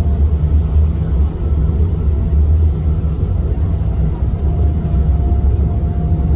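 Steady low rumble on the deck of an Emerald class ferry under way, with a faint thin steady tone above it.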